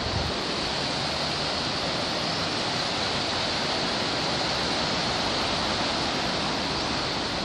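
Steady rush of river water spilling over a low stone weir and rapids.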